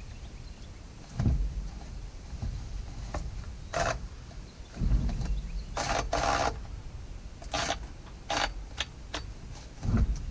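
Hand work on a battery chainsaw's plastic housing and chain: irregular clicks, knocks and a few short scraping rattles of parts being fitted and adjusted.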